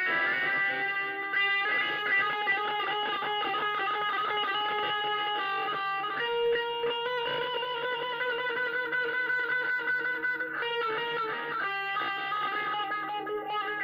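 Cort Katana KX1F electric guitar being picked: quick runs of notes with long notes held ringing beneath them.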